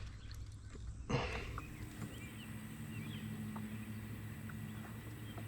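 Quiet outdoor ambience: faint scattered bird chirps over a steady low hum, with a brief rustle about a second in.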